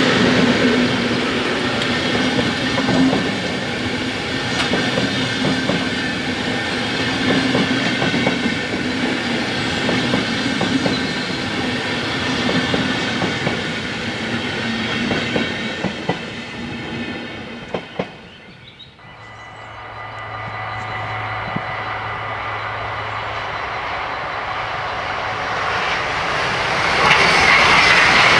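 A train of passenger coaches rolling past, wheels clacking over the rails, fading as the last coach goes by. Then a Dutch NS ICM electric multiple unit approaches with a steady low tone, its rail noise growing louder near the end.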